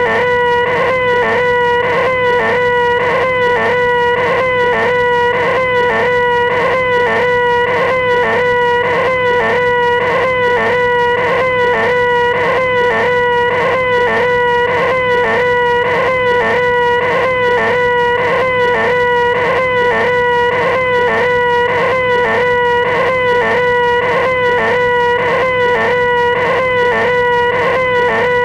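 A man's nasal, whining 'eeeeh' held at one steady pitch, looped over and over with a quick, even pulse: the 'most annoying sound in the world' gag.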